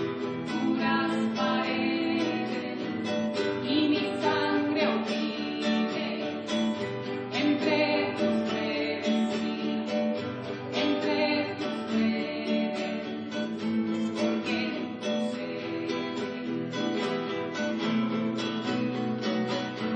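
Music: a strummed acoustic guitar with singing.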